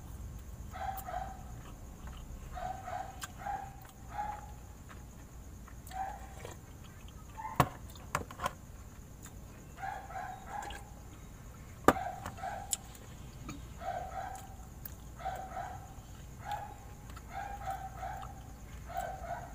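A dog barking over and over in short barks, often in pairs, about one a second. A few sharp knocks around the middle are the loudest sounds.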